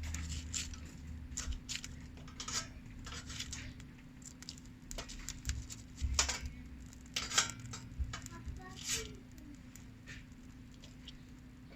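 Steel striker scraping down a ferrocerium fire-starter rod to throw sparks, a run of short, sharp, irregular scrapes.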